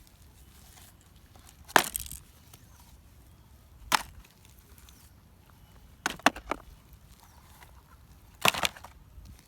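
Toy vehicles picked up and dropped one by one into a collecting basket, each landing with a short clatter: one about two seconds in, another near four seconds, a quick run of three knocks around six seconds, and a last clatter near eight and a half seconds.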